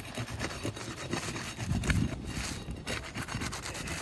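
Asphalt shingle tar strips being broken loose and the shingle tabs lifted: a run of crackling scrapes and rubs, loudest about halfway through.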